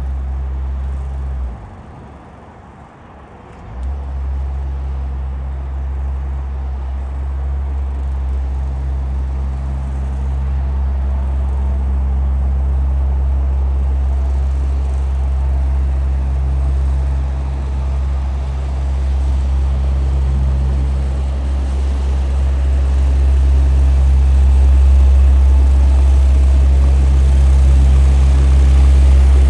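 CAT mini road roller running on asphalt with a loud, steady low drone. About a second and a half in, the deepest part cuts out for roughly two seconds, then comes back and builds slightly toward the end.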